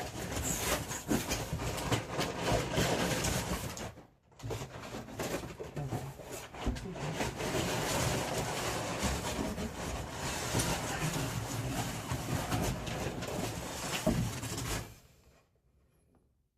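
A cardboard shipping box being opened by hand: crackling rustle and handling of the box and its packing, pausing briefly about four seconds in and stopping shortly before the end.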